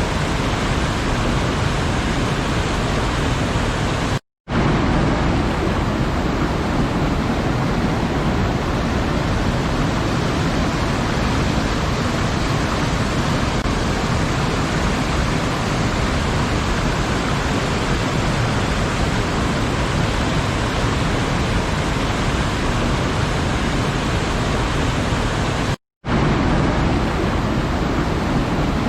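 Steady rushing of a waterfall, an even wash of falling water. It cuts out to silence for a split second twice, about four seconds in and about three seconds before the end, where the recording is looped or spliced.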